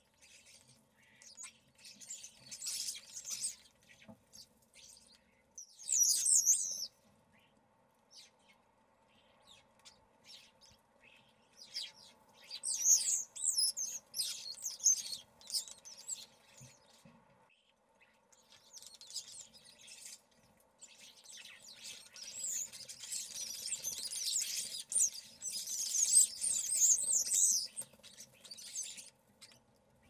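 European starlings chattering in repeated bursts of high calls, with the longest stretch in the last third.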